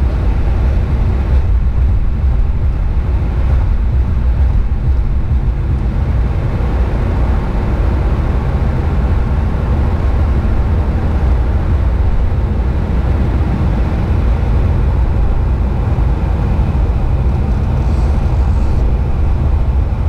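Steady low road and engine rumble of a car driving in freeway traffic, heard from inside the car's cabin, with no distinct events.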